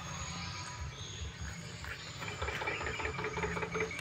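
A dog chewing food off a plastic plate, with a run of short wet, clicky chewing sounds in the second half over a low rumble.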